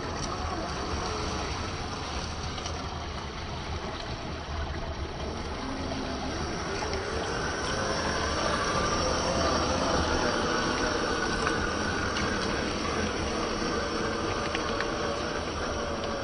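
Electric motor and drivetrain of a Traxxas TRX-4 RC crawler whining over a steady rushing noise, the whine wavering in pitch and growing louder about halfway through.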